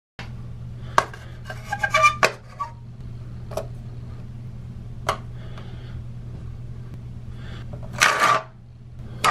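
Plastic razor case and razors handled on a marble countertop: scattered light clicks and taps, then a longer scraping rustle near the end as the case is grabbed, over a steady low hum.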